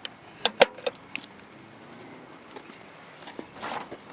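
Sharp latch clicks and a knock from the car's body hardware being worked: a few quick strokes in the first second, the loudest about half a second in, then a short rustle near the end.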